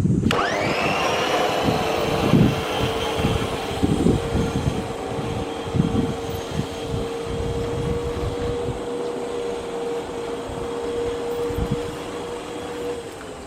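Makita MLM-2851 electric reel lawn mower switched on, its motor whining up to speed within about a second, running steadily with a constant tone, then switching off near the end. It makes an abnormal noise that the owner puts down to the reel blade shaft bearing.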